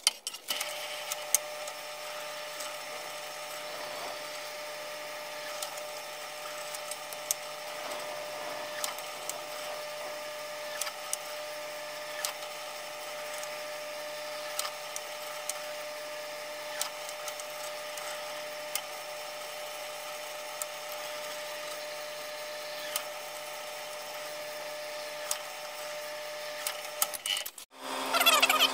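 Benchtop drill press motor running steadily as it drills a small screw hole in a sheet-metal outlet cover plate, with occasional light ticks. Near the end it stops, and a power grinder spins up loudly with a rising whine.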